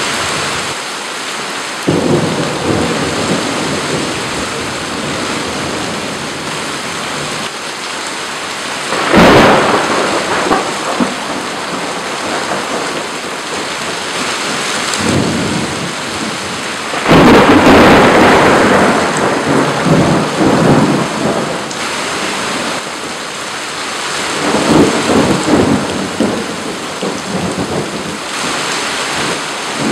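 Heavy rain pouring steadily in a thunderstorm, broken by several claps and rolls of thunder. The loudest clap comes a little past halfway and rolls on for several seconds.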